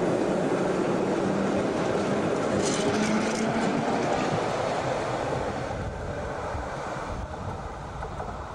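Two-car electric light-rail tram passing close by: a steady rumble of wheels on rail, with brief high squeaks about three seconds in, fading as the tram draws away.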